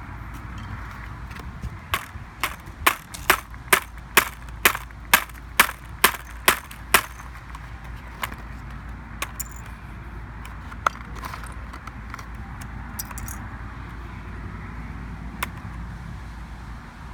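A rapid run of about a dozen sharp blows struck on a MacBook's keyboard keys, roughly two a second, followed by a few scattered taps and clicks.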